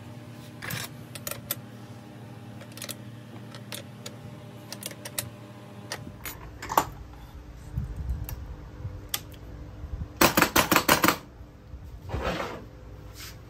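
Metal clicks and clinks from hand work on a starter motor's solenoid terminals and wiring, with a quick run of about eight sharp clicks near the end.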